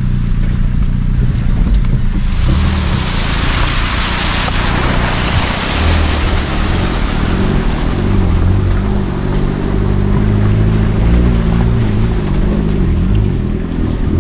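Car engine running at low speed through a stream crossing. A rush of splashing water starts about two seconds in, is loudest for the next few seconds, then eases off.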